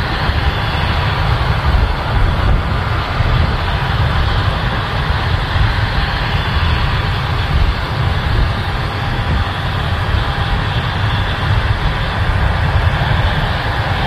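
A John Deere S680 combine and a John Deere 8R tractor with a tracked grain cart run steadily side by side as the combine unloads corn into the cart. Their noise holds level throughout, over a flickering low rumble from wind on the microphone.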